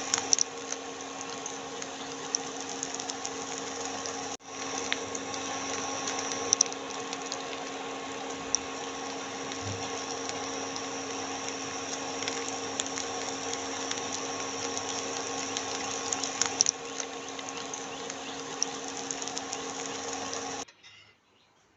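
Steady mechanical hum with an even hiss and scattered faint crackles and clicks, cutting off abruptly near the end.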